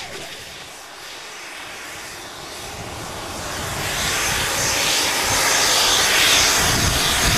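Pressurized gas hissing out of a broken feed-line fitting on a test-stand rocket motor after a firing, where the hose has come off the main fitting. The hiss builds steadily over the first few seconds, then holds.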